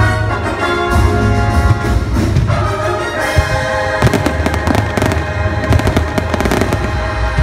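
Fireworks launching and bursting, starting about four seconds in as a dense run of sharp cracks and pops, over show music that plays throughout.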